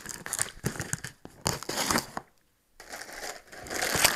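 Cardboard box and plastic packing wrap rustling and crinkling as a parcel is opened by hand, with a few sharp clicks and scrapes; it stops for about half a second just after the two-second mark, then a denser crinkling of plastic follows.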